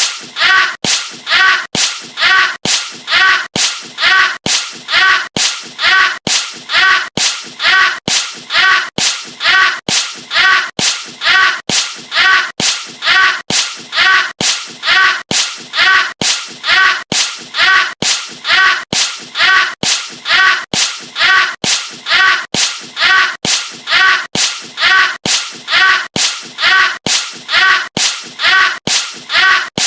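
A movie-style punch sound effect repeated over and over at a steady, mechanical rate, a bit under two hits a second. Each hit is a sharp smack with a short tail.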